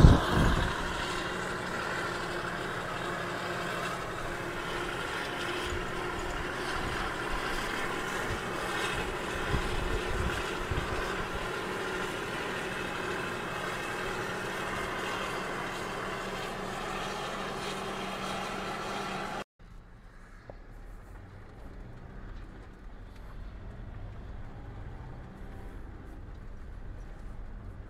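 Claas Jaguar 950 forage harvester and silage truck working together, a steady machine hum with the harvester chopping maize and blowing it into the trailer. About two-thirds through it cuts suddenly to the quieter low rumble of a car driving, heard from inside the cabin.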